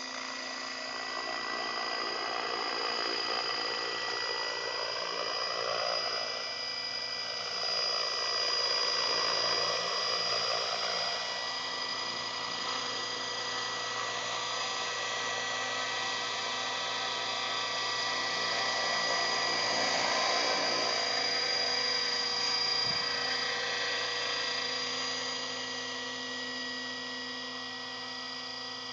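Align T-Rex 600 radio-controlled helicopter running: a steady high whine from its motor and drivetrain with the whir of the spinning main rotor. The pitch swells and falls back about five to eight seconds in.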